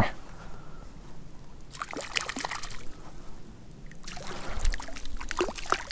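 Small splashes and sloshing of lake water as a hooked Arctic grayling struggles at the surface on the line, in two short spells: about two seconds in, and again from about four seconds on.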